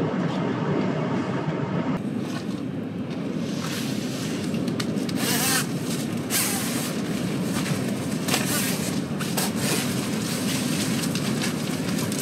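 Steady wind rumbling on the microphone, with intermittent rustling.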